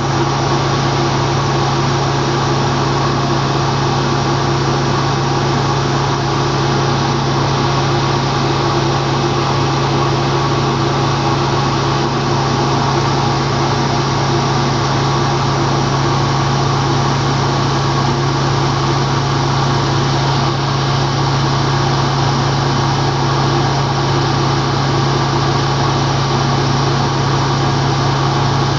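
A boat's engine running at a steady speed, a loud constant drone with a low hum that does not change.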